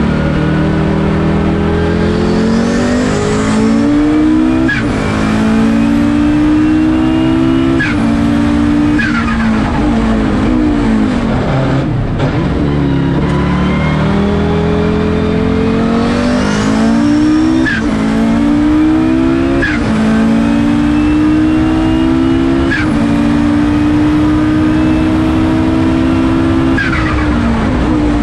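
Audi five-cylinder turbo engine of a Group C race car, heard from the cockpit, pulling hard through the gears. The pitch climbs and then drops sharply at each upshift. Twice it falls away more slowly as the car slows, once about a third of the way in and again near the end.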